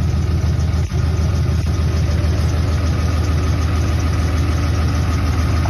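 Cummins 6.7-litre inline-six turbo diesel of a 2010 Dodge Ram 3500 idling steadily.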